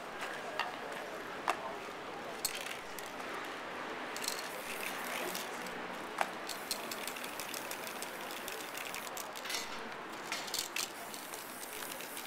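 Aerosol spray-paint cans hissing in short bursts, mixed with sharp clicks and knocks of cans and caps being handled and set down.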